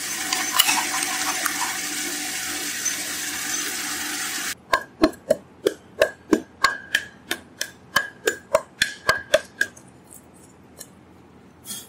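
Radial drilling machine running with its twist drill cutting into a wooden block, a steady whirring noise that cuts off about four and a half seconds in. Then a quick run of about sixteen sharp scraping strokes, roughly three a second, as a metal file is worked against the drilled wood.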